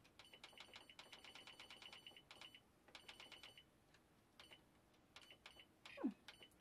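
Canon Pixma G7020 printer control-panel buttons being pressed in quick runs, each press giving a faint click with a short beep, as the paper settings are scrolled through; then a few single presses. Near the end a short sound falls in pitch.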